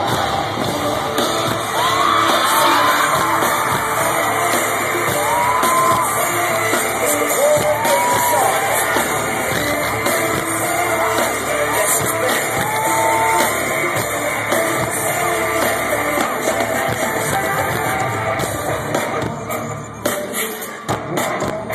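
Live pop music played loudly over a concert sound system, with fans screaming in rising-and-falling shrieks through the first half.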